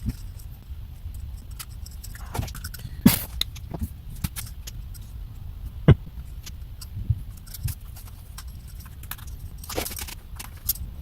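Small clicks, taps and light clatter of plastic instrument-cluster parts being handled and pressed together, with two sharper knocks about three and six seconds in, over a low steady hum.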